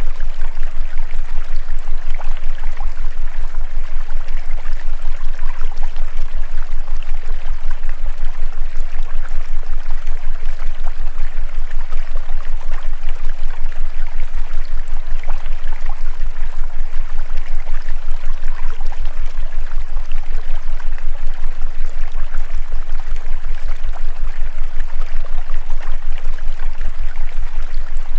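Steady rushing water sound like a flowing stream, with a deep low hum beneath it that pulses quickly and evenly.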